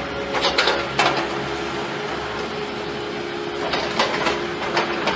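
A machine running with a steady hum, with two bursts of sharp clattering knocks, one about half a second in and one around four seconds in.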